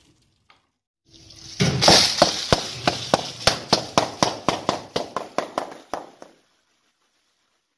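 Car tyre rolling over a row of sealed potato-chip packets, bursting them one after another: a regular string of sharp pops with crunching, about four a second, fading toward the end and stopping about six seconds in.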